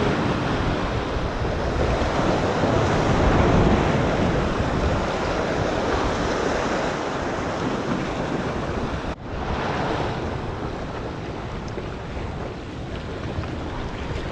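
Ocean surf washing and breaking against the rocks of a jetty, with wind on the microphone. The sound drops out for a moment about nine seconds in.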